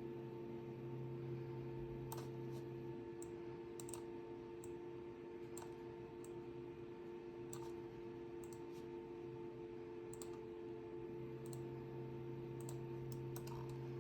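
A computer mouse clicking now and then, about a dozen scattered clicks, over a steady low hum.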